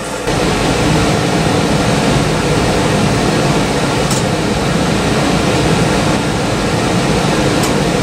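York gas forced-air furnace running, a steady rushing noise that steps up suddenly just after the start as more of the furnace comes on, with a few faint ticks. It is a furnace that keeps dropping its flame on a four-red-flash fault.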